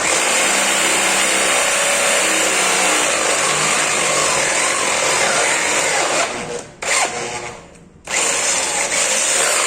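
Electric drill boring into the stock steel exhaust muffler of a Honda CB1000R, running hard under load. About two-thirds through it stops for roughly a second and a half, with one brief burst in the gap, then starts again.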